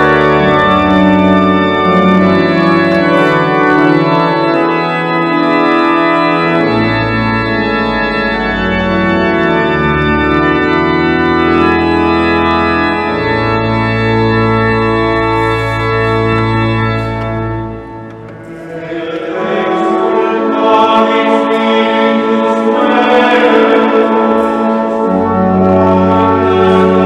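Church organ playing sustained chords, its bass notes changing every few seconds. It thins out briefly about two-thirds of the way through, then comes back fuller.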